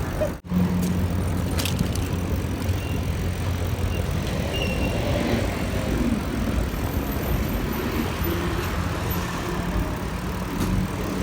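Wind and road noise from riding a bicycle along a street, with a steady low hum underneath. The sound cuts out for an instant about half a second in.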